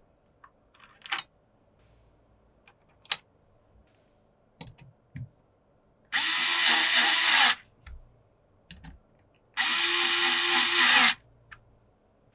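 Small electric screwdriver whirring in two bursts of about a second and a half each, driving in screws, after a few light clicks and taps of parts being handled.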